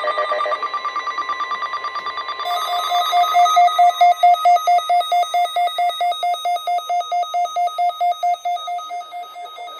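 Emergency alert tones received over NOAA Weather Radio, signalling a severe thunderstorm warning: a steady alarm tone at first, then from about two and a half seconds in a fast pulsing two-note electronic beep, about five pulses a second, fading near the end.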